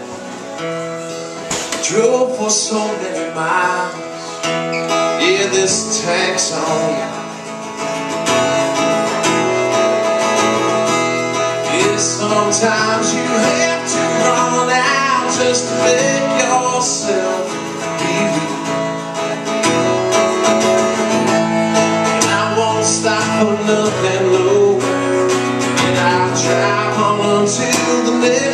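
Acoustic guitar played live, strummed and picked, getting louder about eight seconds in.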